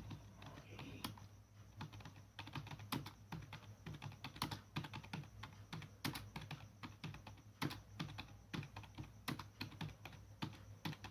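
Computer keyboard being typed on: an uneven stream of key clicks, a few a second, as a typing-practice exercise is keyed in.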